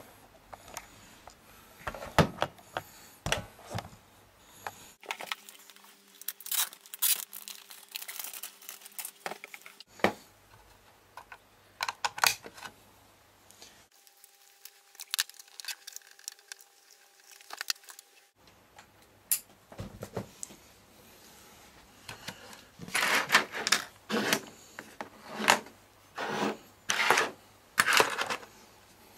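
Handling noise from plugging an Ethernet network cable into a router and a plastic Time Capsule: scattered clicks, taps and rustles, busiest near the end.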